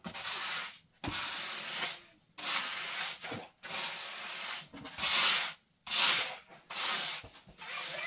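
Repeated scraping or rubbing strokes, about one a second, each lasting most of a second with short gaps between.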